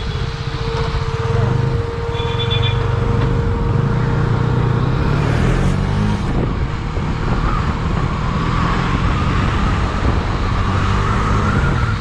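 KTM Duke single-cylinder motorcycle engine running at riding speed, its note rising and falling with the throttle and climbing near the end as the bike accelerates, with wind rushing over the helmet microphone.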